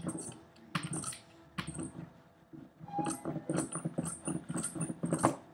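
Hand ink roller worked back and forth over a linocut block, inking it for printing: a run of short rolling strokes, with a pause of about a second near the middle.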